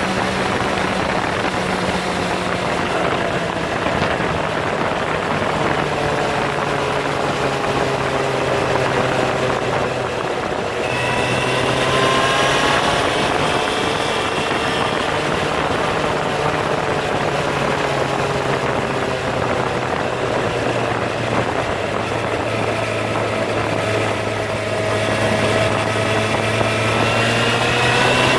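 Motorcycle engine running under way, heard from the handlebars with a steady rush of road and wind noise. The engine note climbs as the bike accelerates about eleven seconds in, and again near the end.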